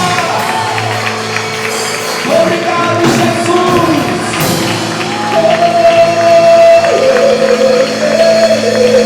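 Band playing a gospel worship song, with long held notes and some gliding sung lines over steady chords.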